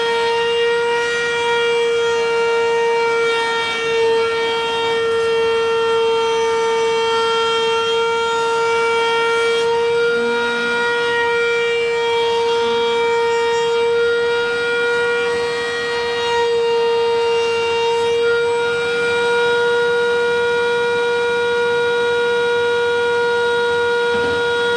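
Table-mounted router running at full speed, a loud steady high whine, as its bit shapes the edges of a thick wooden toy-car body fed along it.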